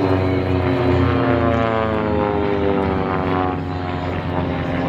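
Propeller engines of small aerobatic planes flying past overhead. The engine note falls steadily in pitch as they go by.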